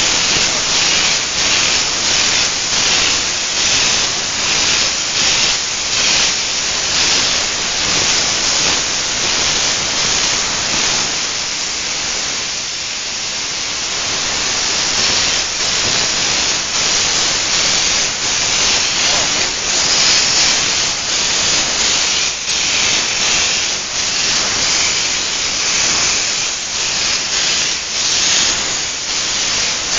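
Compressed-air spray gun hissing loudly as it sprays Duratex speaker-cabinet coating, the hiss swelling and dropping in short pulses and easing off for a moment about twelve seconds in.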